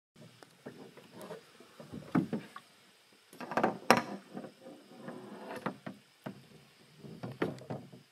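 Canoe hulls knocking and scraping against rocks as the canoes are worked through a shallow, rocky channel. The clunks come irregularly, and the loudest is about four seconds in.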